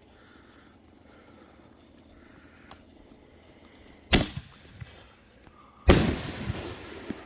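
Crickets chirping in a steady pulse throughout. About four seconds in, a 5-inch 60-gram artillery canister shell is launched from its tube with a sharp thump, and under two seconds later it bursts overhead with a louder report that trails off in a short echo.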